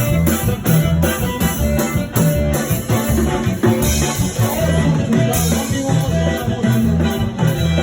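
A live Latin band playing: a bass line under a steady, rhythmic percussion beat.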